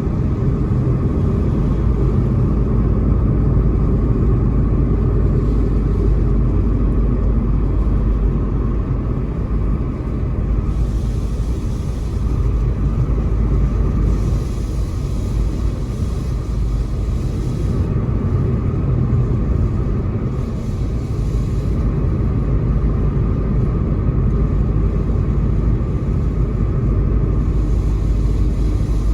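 Car driving on a rain-wet road: a steady low rumble of road and engine noise, with spells of higher hiss from about ten seconds in.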